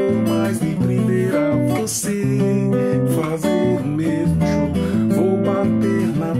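Classical acoustic guitar played in strummed and plucked chords, with a man singing along over it.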